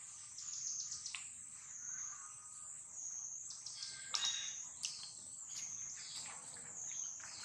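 Steady high-pitched chorus of birds and insects, with a few sharp clicks about four and five seconds in.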